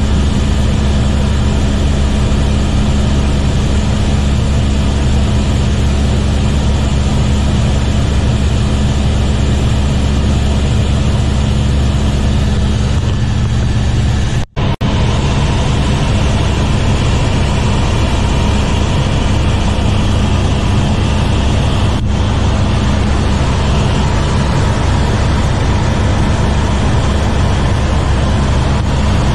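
Airbus helicopter cabin noise in cruise: a loud, steady drone of turbine and rotor with a low hum and hiss. It cuts out for a split second about halfway through.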